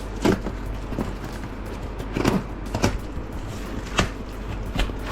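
Packaging being handled while a parcel is unpacked: a few short crinkles and taps, spread out, over a steady low hum.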